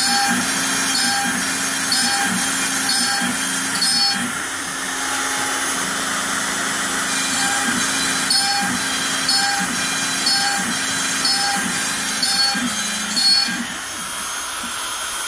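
Makita trim router on a Shapeoko XXL CNC running steadily as it mills shallow holes in an MDF waste board. Its sound changes about once a second as the machine cuts one hole and moves to the next. That pattern stops for about four seconds in the middle, then resumes.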